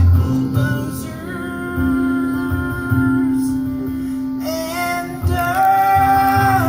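Live solo guitar music with held notes, the instrumental close of a song after its last sung line.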